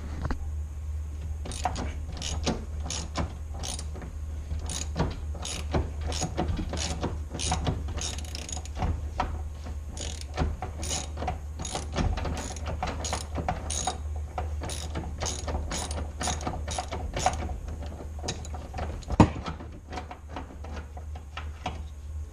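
Hand ratchet wrench clicking in short repeated strokes while backing out door hinge bolts on a 1976 Corvette, with one sharp knock near the end, over a steady low hum.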